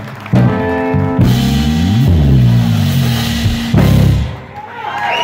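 Live band's ending flourish: guitar, bass, keys and drums hit and hold a full chord under a cymbal wash, with notes sliding up and down. A final accented hit comes about four seconds in and rings off, closing the song.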